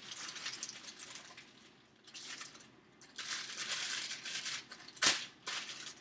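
Plastic bag crinkling in stretches as a wedge of Parmesan cheese is taken out of it, with one sharp knock about five seconds in.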